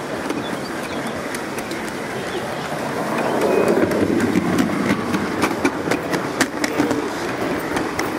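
Gauge 1 model train rolling along garden-railway track, its wheels clicking over the rail joints. The running gets louder about three seconds in, and the clicks come thicker.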